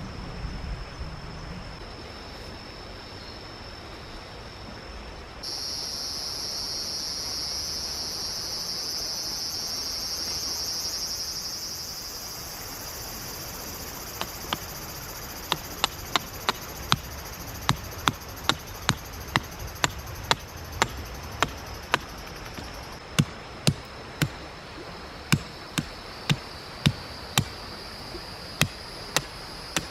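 Insects shrilling steadily at a high pitch, a louder chorus joining about five seconds in, over the even rush of a mountain stream. From about halfway, a run of sharp knocks, one or two a second, like hammering.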